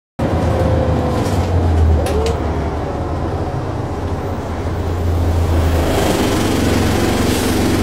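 A single-deck bus heard from inside the saloon while it drives along: the engine runs as a steady low drone with body rattle, and a couple of short clicks come about two seconds in. The low drone eases off about six seconds in.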